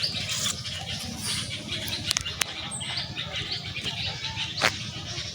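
Small birds chirping and twittering over a steady low outdoor background, with one sharp click about four and a half seconds in.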